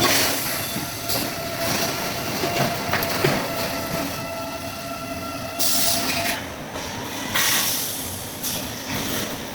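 Automatic duct production line running, with sheet steel being fed and roll-formed. A steady metallic whine stops about six seconds in, and short, louder hissing bursts come near the start and again around six and seven and a half seconds.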